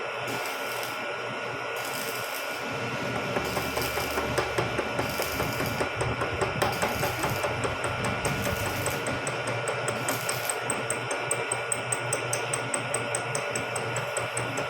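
Vertical milling machine running with a steady motor whine, its cutter milling the teeth of a steel spur gear. From about three seconds in, the cut sets up a rhythmic knocking of about three or four beats a second.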